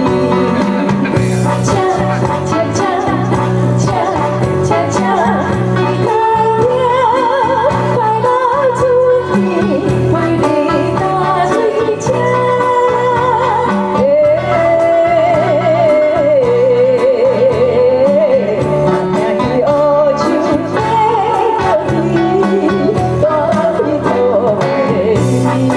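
Live band music: a woman singing a melody with vibrato over electronic keyboard backing with a steady beat, joined by violin.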